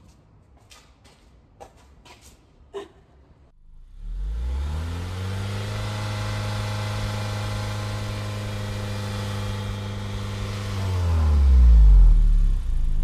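Vehicle engine heard from inside the cabin: about four seconds in, its pitch rises quickly, then it runs at a steady pitch, and near the end the pitch falls while it grows louder. Before the engine comes in there are only a few faint clicks.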